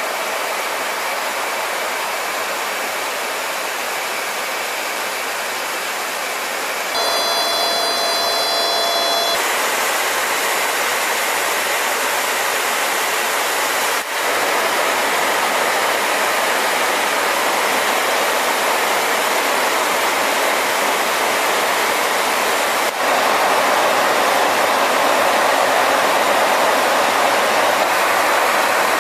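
Steady roar of airflow and jet engine noise inside a B-52H bomber's cockpit in flight. For about two seconds, some seven seconds in, a set of high, steady whining tones sits over the roar. The noise jumps a little louder abruptly a few times.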